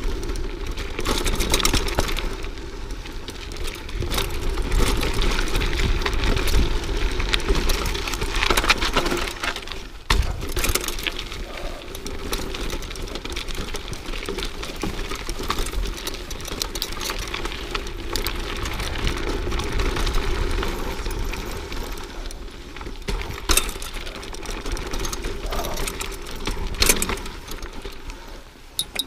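Mountain bike rolling along a rocky dirt singletrack: tyres on dirt and stones, with the bike rattling and clicking over bumps and a few sharper knocks, over a steady low rumble of wind on the camera microphone.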